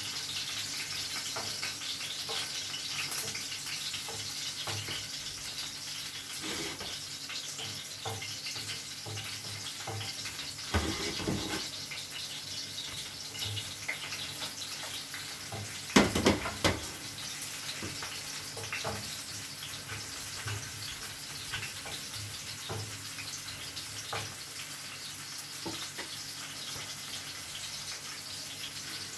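Garlic, onions and tomatoes sizzling in olive oil in a pan, a steady hiss with small crackles. There are louder clatters about eleven and sixteen seconds in.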